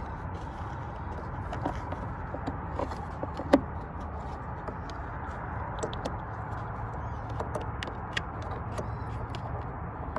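Handling of a small H7 LED headlight bulb and its parts: scattered light clicks and one sharper click about three and a half seconds in, over a steady low rumble.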